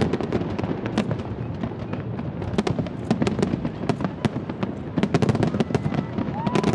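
Aerial fireworks shells bursting, with dense crackling: many sharp pops in quick, irregular succession.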